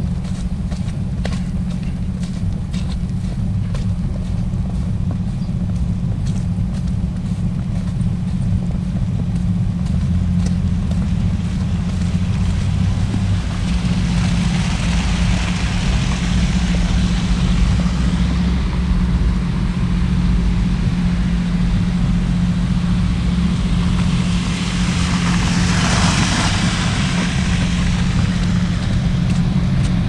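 Wind buffeting the camera microphone as a steady low rumble, with cars passing on a slushy, snow-covered street: a tyre swish swells and fades about halfway through, and again near the end.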